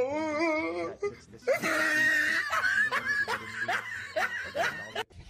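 People laughing: a wavering, drawn-out laugh at first, then a long run of quick laughing bursts.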